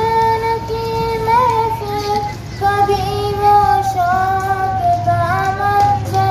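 A schoolgirl singing an Urdu naat solo into a microphone, holding long notes with small melodic turns and slides, with a brief breath about two and a half seconds in.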